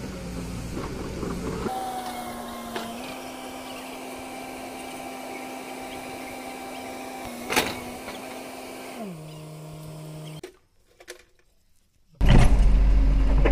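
Kobelco SK210LC excavator's diesel engine running with a steady hydraulic whine as the boom and bucket are worked; the whine steps up slightly early on, gives a single sharp click, and drops to a lower pitch about nine seconds in. After a brief gap, a much louder low engine rumble starts near the end.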